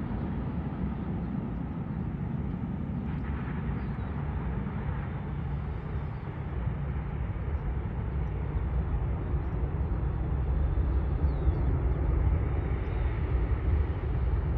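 Distant Boeing 767-300F freighter's jet engines rumbling low during the landing rollout, growing louder through the second half as reverse thrust is applied.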